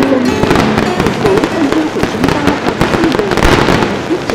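Fireworks display: a dense, continuous run of crackling and popping aerial shell bursts.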